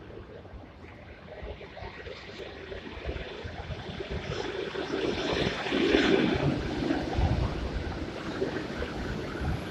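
ED4M electric multiple unit pulling into the platform: the rumble of its wheels on the rails and its running gear grows louder as it approaches, is loudest about six seconds in as the cars come alongside, then carries on as a lower rumble with irregular thumps.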